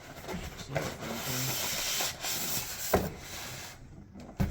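Packaging rustling and parts being handled while RC crawler track units are unpacked from their box, with a sharp knock about three seconds in and another near the end.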